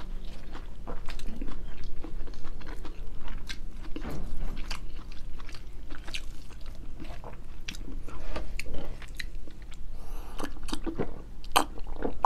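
Close-miked mouth sounds of someone chewing a mouthful of rice and grilled fish: an irregular run of short wet clicks and smacks, with a few louder clicks near the end.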